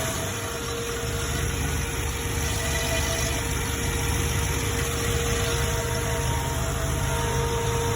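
Boosted engine with a FiTech sheet-metal intake manifold idling steadily: an even low rumble with a thin steady tone above it.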